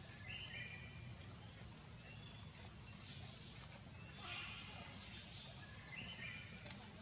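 Outdoor ambience: birds giving scattered short, high chirps over a steady low rumble.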